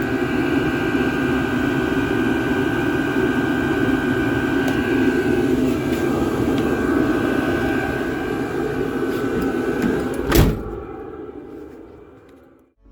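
Hcalory diesel air heater running steadily: a rushing burner-and-blower noise with a steady high whine. A sharp knock comes about ten seconds in, then the sound fades away.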